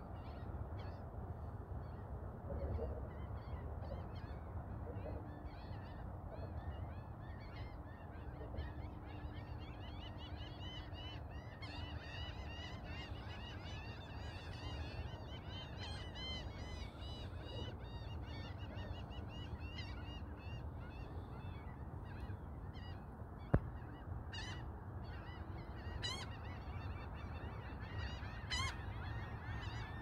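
A flock of birds calling, many short calls overlapping, thickest through the middle and thinning toward the end, over a low wind rumble on the microphone.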